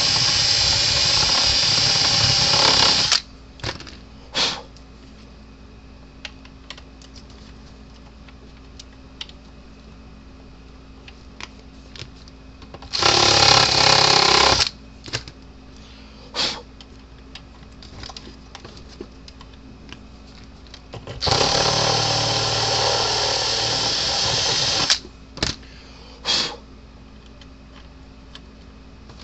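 Power drill with a step bit boring out a hole for a fuse mount, run in three bursts: about three seconds at the start, about a second and a half midway, and nearly four seconds later on. A short blip of the drill follows each burst, with light handling clicks in the gaps.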